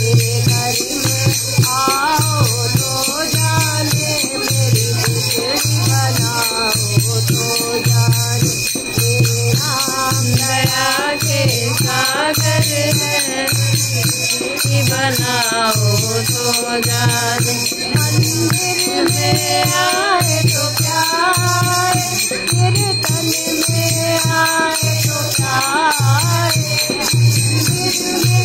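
Hindu devotional bhajan sung by a group of voices over a steady low drum beat a little over once a second and constant jingling percussion.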